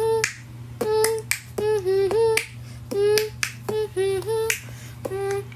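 A high-pitched cartoon voice beatboxing: sharp clicks, each followed by a short hummed note, repeating in a steady rhythm over a constant low hum.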